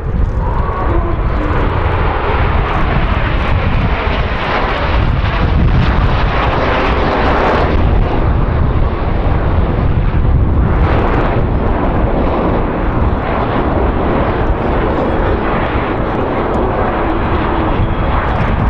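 Canadair CT-114 Tutor jets of the Snowbirds team, each with a single turbojet engine, flying a display overhead: a loud, continuous jet noise with heavy low rumble that swells a little twice, about a third of the way in and again just past the middle.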